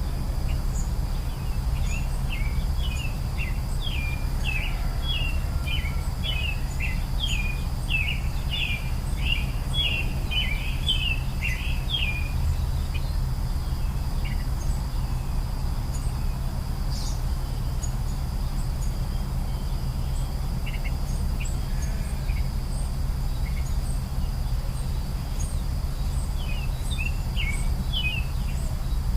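A songbird singing a long string of quick chirps, then a shorter string near the end, over a steady high insect drone and a constant low rumble.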